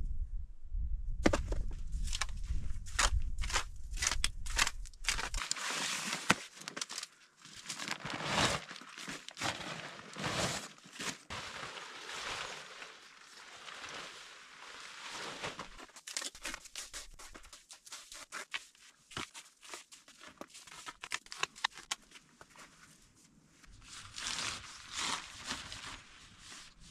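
Nylon tent fabric and gear crinkling and rustling as a bivy tent is handled and pitched, with many small clicks and taps. A low wind rumble on the microphone stops abruptly about five seconds in.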